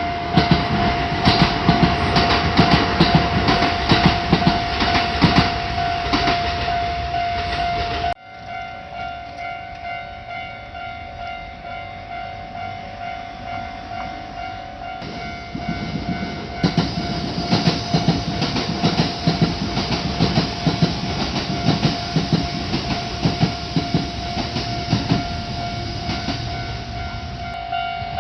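Railway level-crossing warning bell ringing steadily while a Kintetsu train passes, its wheels clattering over the rail joints. The train noise drops off abruptly about 8 seconds in, leaving the bell, and builds up again a few seconds before the middle.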